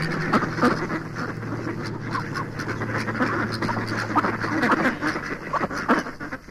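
Lo-fi experimental noise recording: a dense jumble of crackles and short warbling, quack-like blips over a low steady hum, fading out near the end as the track closes.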